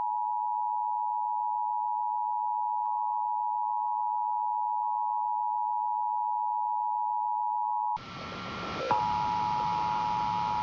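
Emergency Alert System attention signal: a steady two-tone alert tone. About eight seconds in it cuts out to a hiss, then comes back about a second later with a click.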